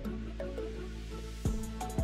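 Background music: a melody of short, stepped notes over a steady beat, with a deep kick-drum hit about one and a half seconds in.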